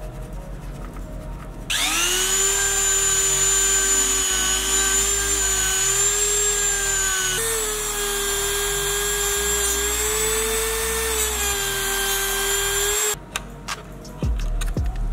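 Handheld rotary tool with a small cutting disc spinning up and running as a steady high whine while cutting into the model car's plastic window, the pitch stepping slightly higher about halfway through; it stops near the end.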